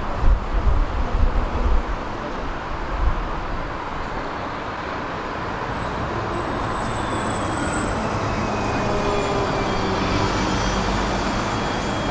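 Heritage tram running along its track: a steady rumble of wheels on rails with a few jolts in the first two seconds. A brief high-pitched squeal comes about six seconds in, and a faint whine falls slowly in pitch in the second half.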